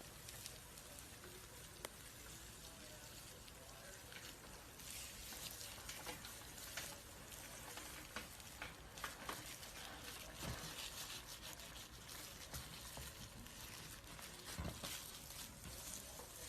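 A snake shedding its skin: faint dry crackling and rustling as the old skin peels, with scattered small clicks and a couple of soft thumps.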